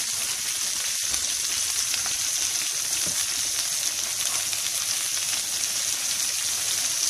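Köfte patties and long green peppers sizzling steadily in hot oil in a frying pan, with faint scattered crackles.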